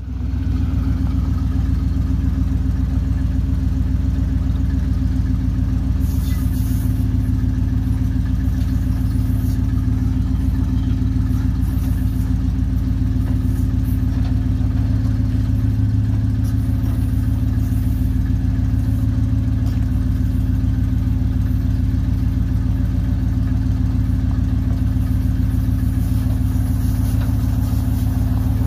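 The 1981 Chevrolet C70 truck's 6.0-litre gas V8 running steadily at an even speed, with no revving.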